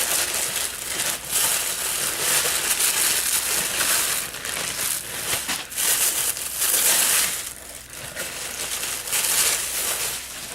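Packaging being crinkled and rustled by hand as it is pulled open, in irregular bursts with short lulls.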